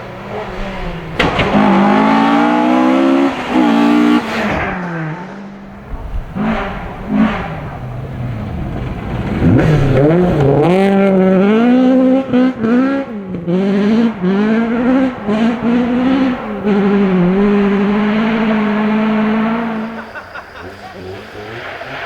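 Rally car engine revving hard, its pitch climbing and dropping again and again with gear changes and throttle lifts. It comes in loud about a second in, eases off for a few seconds, then is loud again from about ten seconds in before fading near the end.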